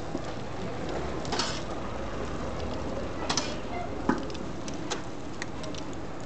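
Light scattered clicks and clatter of cooking utensils at a street grill, over steady street background noise.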